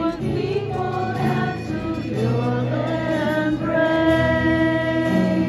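A group of women singing a worship song together, with long held notes.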